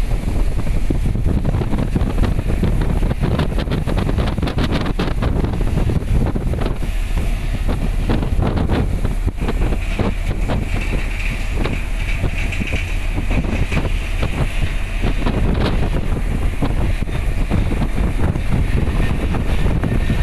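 Strong wind blowing over the microphone on a container ship's open deck. It makes a loud, continuous rushing noise with constant uneven buffeting, described as noisy.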